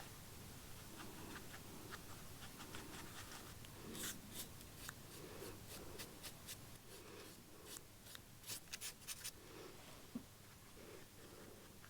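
Faint scratching and light ticking of fine hand work on the monkey automaton's head, with a run of quick ticks in the middle.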